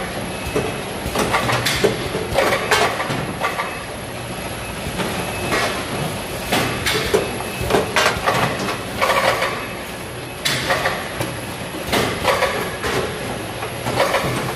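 Peach sorting and grading conveyor running with a steady hum and a busy, irregular clatter of knocks and clacks from its fruit cups and from boxes and peaches being handled.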